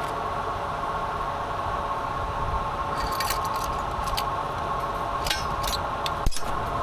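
A vehicle engine running steadily with a thin constant whine, joined about halfway through by light metallic clinks and rattles, and a single sharp knock near the end.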